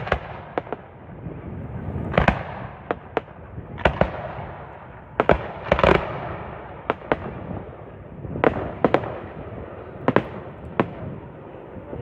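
Fireworks display: a dozen or more sharp bangs at irregular intervals, some close together and some followed by a brief echoing tail, over a continuous rumble.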